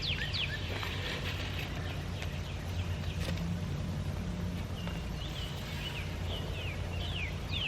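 Steady low rumble with birds chirping in quick, repeated falling notes, strongest near the start and the end.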